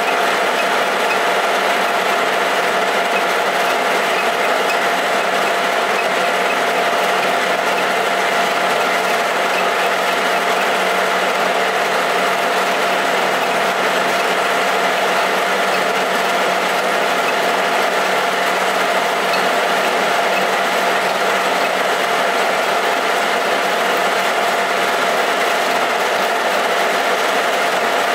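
Metal lathe running with its chuck spinning at a steady speed: an even mechanical whine from the headstock gearing over a running hum, unchanging throughout.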